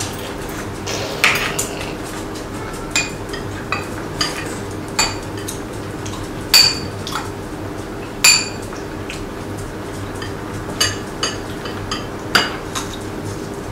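Metal chopsticks and spoons clinking against ceramic bowls and plates during a meal: single clinks scattered every second or so, two of them louder near the middle, over a faint steady hum.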